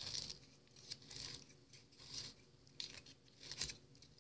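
Quilling paper crimper being turned by hand, a paper strip rustling and clicking as it feeds between the crimping wheels. The sound comes in faint, uneven bursts about once a second.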